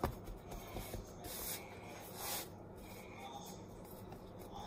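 Hands shaping soft yeast bread dough on a metal baking tray: soft rubbing and brushing with a few short swishes, and a sharp tap right at the start.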